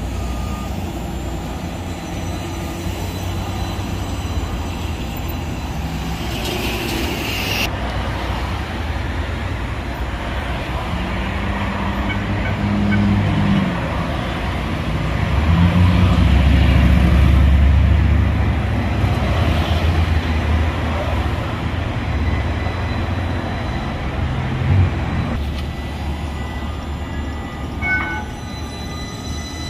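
Electric streetcar running along its track amid street traffic, a steady low rumble that swells to its loudest about halfway through; a brief high tone sounds near the end.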